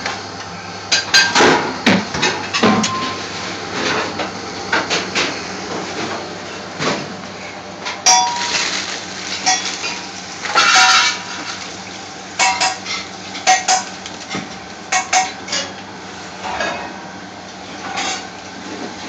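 Kitchen clatter: metal utensils and dishes clinking and knocking at irregular moments, some strikes ringing briefly, over a steady low hum.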